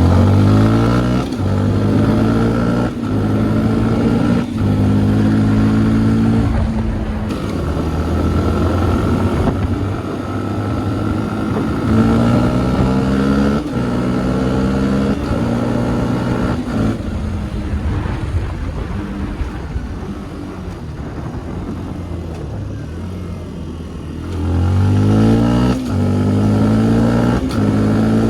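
Fantic XMF 125's four-stroke single-cylinder engine pulling through the gears under acceleration, the revs climbing and falling back at each upshift. Several quick shifts come at the start, then a steady cruise and a second run up through the gears. The engine eases off and goes quieter about two-thirds of the way in, then accelerates hard again near the end.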